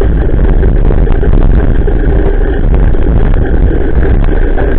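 Loud, steady, deep rumble of wind buffeting and tyre noise on a bicycle-mounted Nedis action camera's microphone while riding a wet path in the rain, with a few faint small knocks from bumps.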